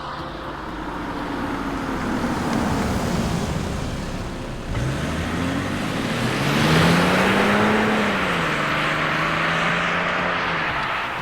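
BMW 530d E60's three-litre straight-six diesel engine: its note falls in pitch over the first few seconds, then after an abrupt change about halfway in it climbs in pitch under acceleration, peaks, and eases back to a steady note.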